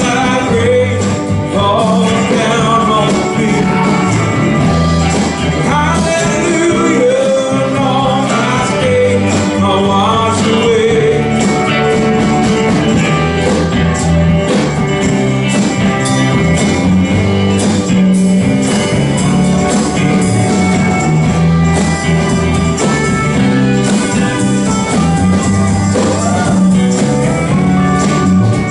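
Live band playing a country-style worship song, with electric guitar over a moving bass line. Singing carries the melody for roughly the first ten seconds, after which the band plays on mostly without voice.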